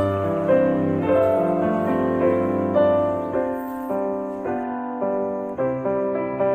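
Slow background piano music, single notes and chords struck every half second or so and left to fade.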